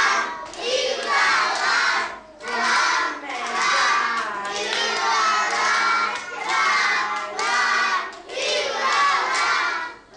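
A group of young children singing together, loud and half-shouted, in short phrases with brief breaks between them.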